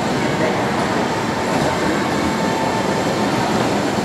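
Miniature kiddie-ride train running along its track, a steady rolling noise of its wheels and cars with no breaks or sudden knocks.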